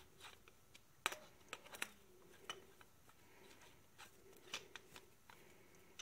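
Faint scattered metal clicks and ticks of a T-handle hex key working the screws of a thread rolling head, with a small cluster just after a second in and a few more later, over a faint steady hum.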